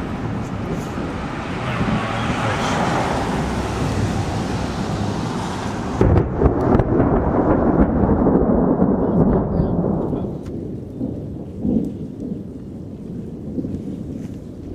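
Thunder from a supercell thunderstorm: rumbling that builds, then a sharp crack about six seconds in, followed by a heavy low rumble that dies away over the next few seconds.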